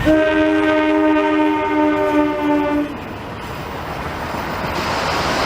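Indonesian diesel locomotive's horn giving one long blast of about three seconds, several notes at once, the Semboyan 35 signal, then stopping abruptly. The train's running noise follows, a steady rush that grows louder toward the end.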